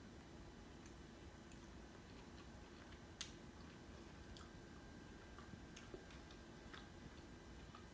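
Faint chewing of a crisp deep-fried chicken piece over near silence, with scattered soft clicks and one sharper click about three seconds in.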